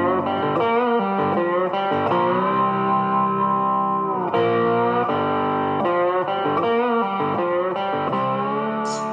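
Background music led by guitar, with held notes that bend in pitch.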